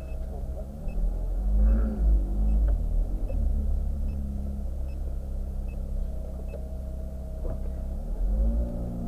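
Ferrari F430 Spider's V8 running at low driving speed, heard from the open cabin, with a deep rumble; the engine note rises and falls with light throttle about a second and a half in and again near the end.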